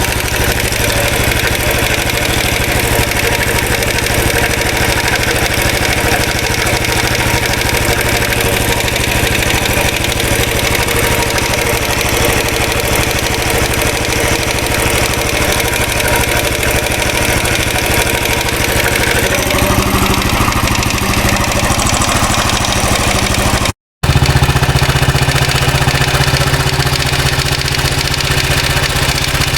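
Royal Enfield Classic 500's single-cylinder UCE engine idling steadily, with an oscillating rattle whose cause is still unknown. The sound cuts out briefly near the end and comes back deeper.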